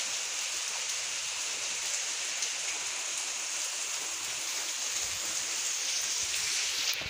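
Heavy rain falling steadily: a dense, even hiss without let-up.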